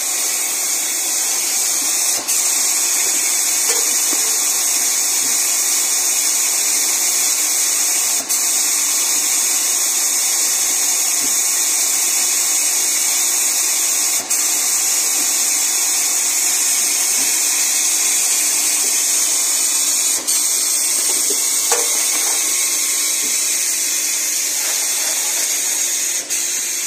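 Steady high-pitched hiss of an automatic tissue case-packing line's machinery running, with brief dips in loudness about every six seconds.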